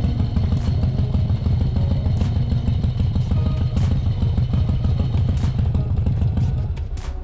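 Harley-Davidson Shovelhead V-twin motorcycle engine running with a loud, fast, uneven low exhaust pulse, which stops shortly before the end.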